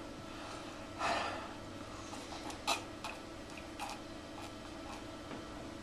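A man's heavy breath about a second in, then a few small sharp clicks and knocks over a low steady room hum.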